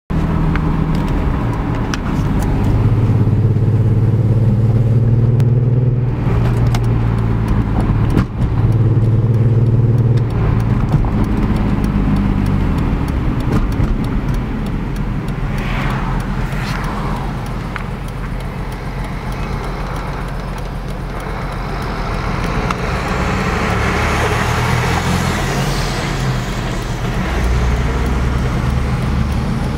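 BMW E46 M3's S54 straight-six engine running with a steady low drone that swells and eases, misfiring on all six cylinders because the pre-cat oxygen sensors are fitted to the wrong banks. Brief sweeping sounds come about 16 seconds in, and a hiss builds later.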